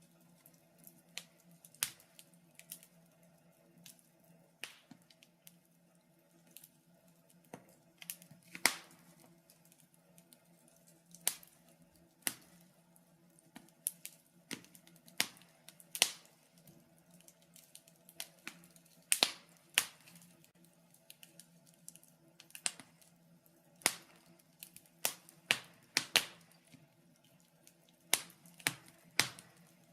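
Wood fire crackling in a fireplace: irregular sharp pops and snaps, some much louder than the rest, over a faint steady hum.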